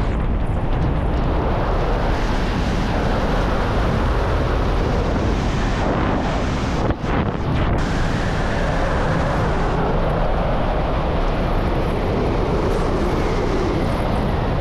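Wind buffeting the camera microphone during a fast speedflying descent: a loud, steady rush of air with a brief drop in level about seven seconds in.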